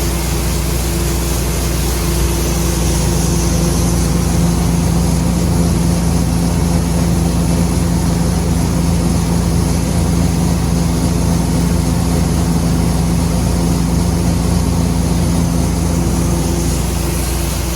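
John Deere combine running steadily at close range, engine and harvesting machinery giving a constant drone with a steady hum and a high hiss. It comes in suddenly loud at the start.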